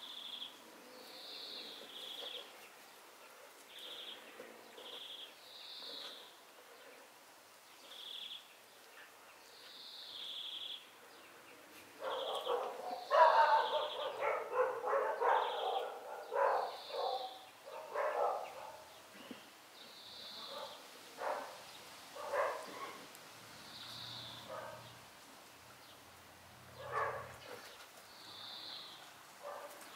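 Six-week-old Groenendael puppies yapping at play, in a busy run of short barks around the middle and a few single yaps later. A bird gives a short high call over and over, every second or two.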